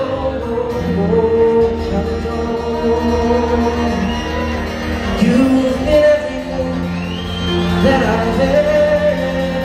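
Live folk band performing: several acoustic guitars and a fiddle playing, while a man sings the melody in long held notes.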